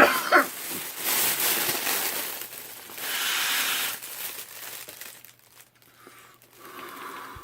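The plastic balloon bag of a Volcano vaporizer crinkling as vapor is drawn from it, with long airy hisses of inhaling through the mouthpiece.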